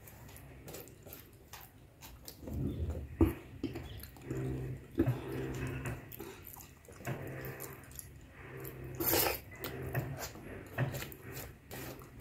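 Close-miked eating: wet chewing and squelching of khichdi mixed by hand on a steel plate, with small clicks throughout. Several low steady hums of about a second each, and a short breathy puff about nine seconds in.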